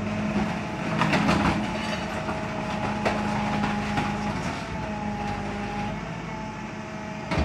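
Rear-loading garbage truck's compactor running under hydraulic power, a steady engine drone, with sharp cracks about a second in and again about three seconds in as plastic baskets are crushed in the hopper. The drone eases off about six seconds in.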